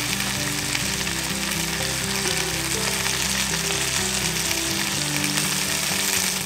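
Roast harissa chicken in a cast-iron skillet sizzling steadily over hot embers, a dense hiss that cuts off sharply at the end. Background music plays underneath.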